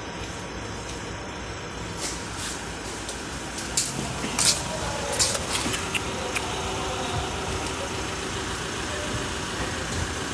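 A vehicle engine idling steadily, with a scatter of sharp clicks between about two and six and a half seconds in.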